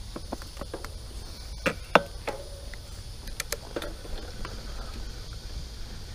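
A mountain bike rolling off along a dirt trail: a low rumble of tyres, with irregular clicks and knocks from the bike, the two loudest about two seconds in.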